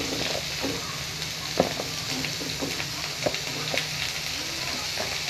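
Carrots and cauliflower sizzling in hot oil in an aluminium wok, a steady hiss, with a few sharp clicks of a metal spatula against the pan.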